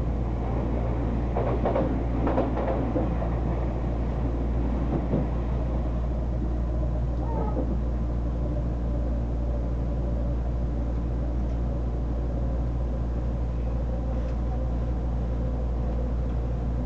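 Odakyu Line commuter train running at speed, heard from inside the passenger car: a steady low rumble of wheels on rail with a constant hum. For the first three seconds or so a train passing the other way adds a louder rushing clatter.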